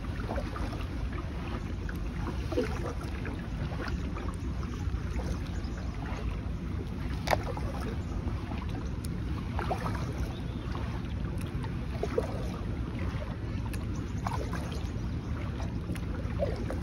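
Steady low wind rumble on the microphone, with small water splashes and knocks against a plastic sit-on-top kayak every few seconds, the sharpest about seven seconds in.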